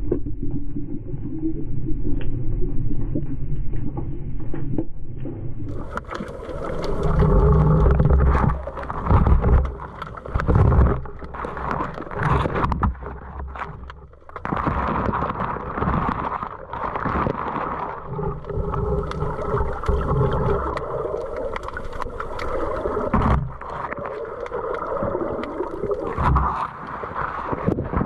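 Muffled underwater water noise around a submerged camera: a dull low rumble at first, then, about six seconds in, fuller uneven sloshing and gurgling with many short knocks and rubs.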